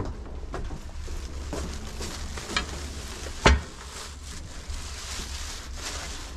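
Footsteps and handling knocks over a steady hiss and low rumble. A sharp knock about three and a half seconds in is the loudest sound.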